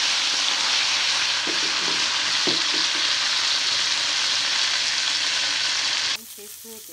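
Cauliflower florets sizzling in hot oil in a pan: a loud, steady frying hiss that drops off abruptly near the end.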